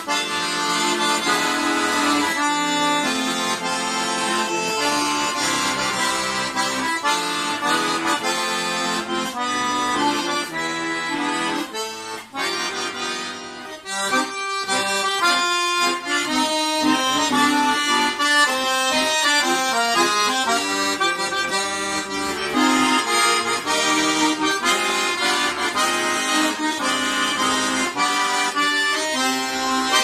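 Button accordion playing a melody over full chords. About halfway through it drops to a sparser run of single notes stepping down, then the full chords come back.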